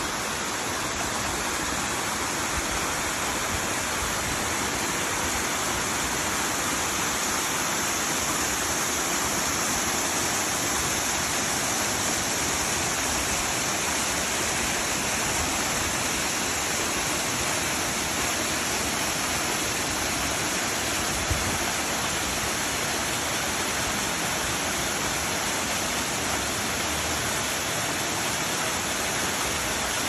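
Small waterfall splashing over rock ledges into a rock pool: a steady, unbroken rush of falling water.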